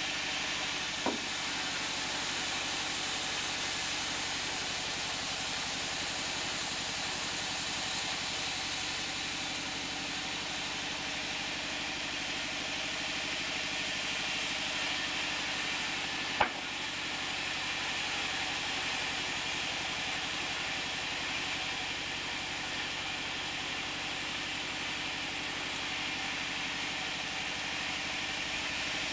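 Sawmill band saw running steadily while ripping mango-wood planks, a constant mechanical hum with a hissing edge. Two short sharp knocks stand out, one about a second in and one about midway.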